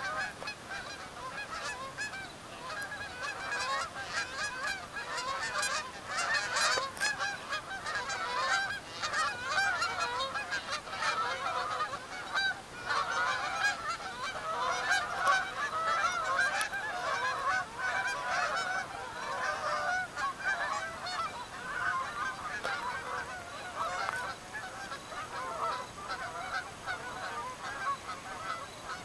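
A large flock of Canada geese honking, with many calls overlapping in a continuous chorus.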